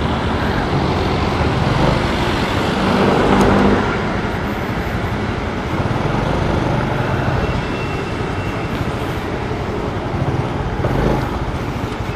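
Motorcycle engine running with road and wind noise as the bike rolls slowly, swelling briefly about three seconds in. In the second half the engine settles to a low idle with a fast, even pulse as the bike comes to a stop.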